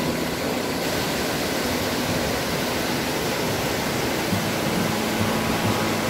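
Steady rush of a tall jungle waterfall and the rocky mountain stream below it: an even, unbroken wash of water noise.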